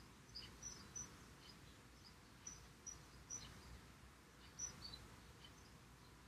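Near silence with scattered faint, short high chirps of small birds at irregular intervals.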